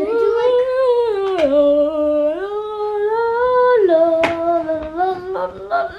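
A child humming a slow, wordless tune in long held notes that drop, rise again and climb near the end, with a couple of short clicks in between.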